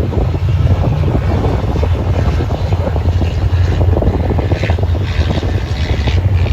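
An off-road vehicle's engine running steadily while riding, a constant low drone under rough, choppy noise.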